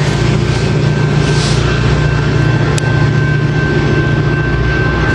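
Coaster commuter train's F40PHM-2C diesel locomotive running as the train pulls out, a steady low drone with one sharp click about three seconds in.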